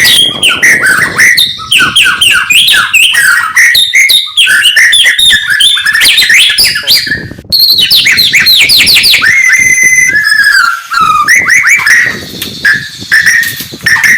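White-rumped shama (murai batu) singing loudly in a fast, unbroken stream of whistled phrases, quick up-and-down sweeps and trills, with a brief pause about seven and a half seconds in.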